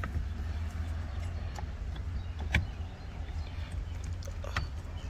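A few light clicks and taps of steering-wheel parts being handled and fitted, over a steady low hum.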